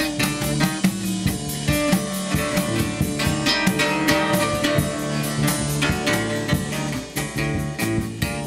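Acoustic band playing an improvised piece: a guitarrón's plucked bass notes and a mandocello over a drum kit keeping a steady beat.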